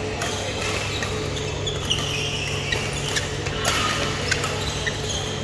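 Badminton play in a large hall: a few sharp racket-on-shuttlecock hits and brief high shoe squeaks on the court floor, over a steady low hum.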